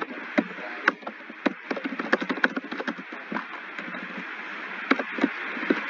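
Computer keyboard typing: irregular keystroke clicks, several a second, over a steady hiss.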